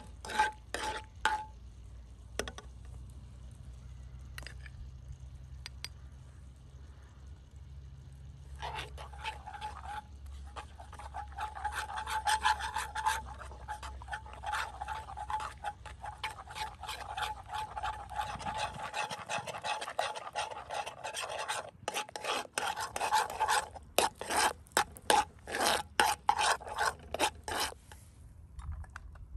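Metal spoon stirring and scraping melted butter around a steel pan on a portable gas stove: many quick repeated scrapes, sparse at first and thickest and loudest in the last third.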